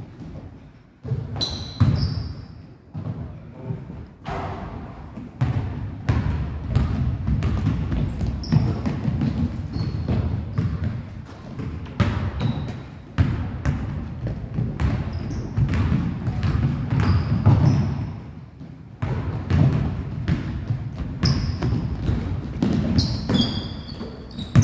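Basketballs being dribbled and bouncing on a hardwood gym floor in a scrimmage, a rapid, irregular run of knocks, with short high sneaker squeaks scattered through.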